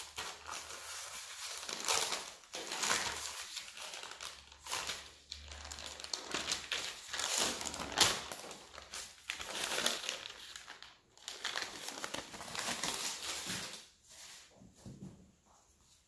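Sheet of baking paper rustling and crinkling as it is handled and peeled off a slab of margarine, with many small crackles. It dies down near the end.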